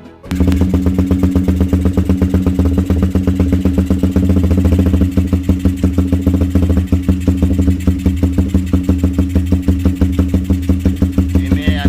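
Motorcycle engine idling through a Lone Rider aftermarket racing exhaust, a steady, even pulsing exhaust note that starts abruptly just after the beginning.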